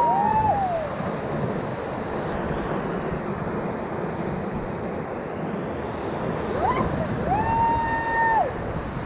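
Whitewater river rapids rushing steadily around a raft. Two high held calls, like whoops, cut through: a short one at the start and a longer one near the end.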